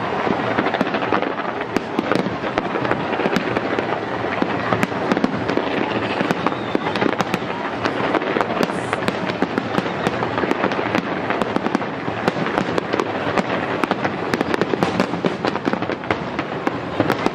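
Fireworks going off in a dense, continuous run of crackles, pops and bangs, with no pause.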